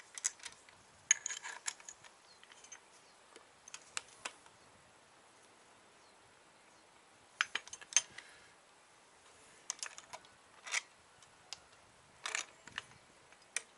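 Scattered light clicks and clinks in small clusters as top-mount bushings, washers and a nut are handled and fitted on a coilover's strut shaft.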